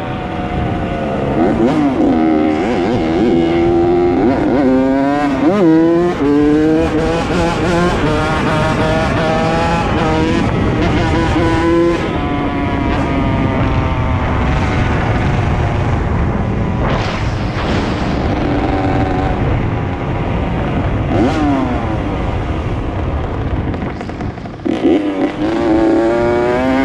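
Small dirt bike engine running and being revved: its pitch rises and falls over and over with throttle blips, and holds steadier for a while in the middle.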